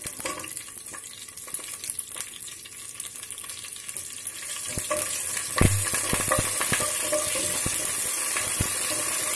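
A tempering of mustard seeds, cumin, dried red chillies and curry leaves sizzling and crackling in hot oil in a nonstick pan while a spatula stirs it. The sizzle grows louder about halfway through, with one sharp knock a little later.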